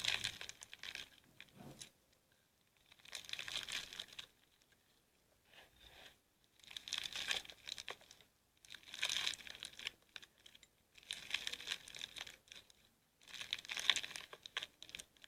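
Slime being squeezed and kneaded by hand, crackling and crinkling in repeated bursts of a second or two, about six times, with short pauses between.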